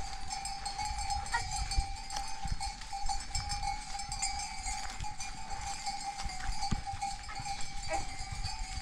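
Bells on a flock of sheep ringing steadily as the flock is driven along, over scuffing and thudding of hooves and feet on dry, stony ground.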